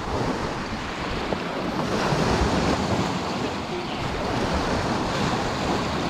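Wind-driven waves washing steadily against the lakeshore, with strong wind buffeting the microphone.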